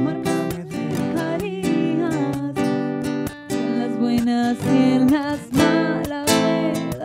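Acoustic guitar strummed steadily, accompanying a voice singing a song.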